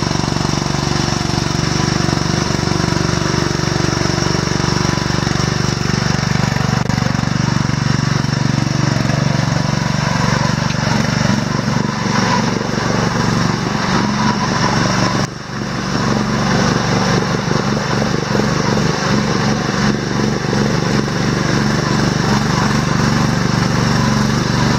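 ATV engine running steadily as the quad drives through deep mud.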